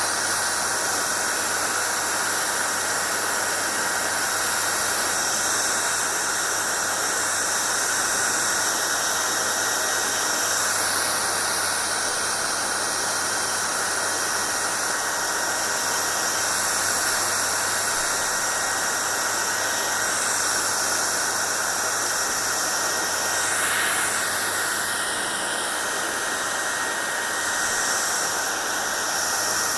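Hair dryer running steadily: a constant rush of blown air with a faint high whine and a low hum underneath, the hiss shifting slightly now and then.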